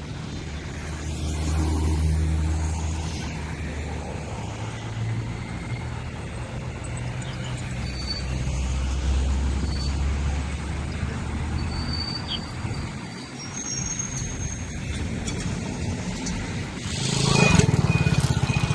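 Road traffic: car and bus engines rumbling as vehicles pass and pull away, swelling and fading, with a louder burst of vehicle noise near the end.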